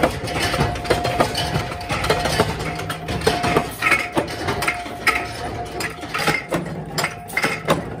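Workshop machinery running with a steady hum, overlaid by frequent irregular clicks and clatter of metal parts.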